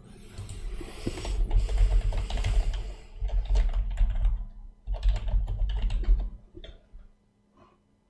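Typing on a computer keyboard: a fast run of keystrokes with low thuds, stopping about six and a half seconds in, then a few separate clicks.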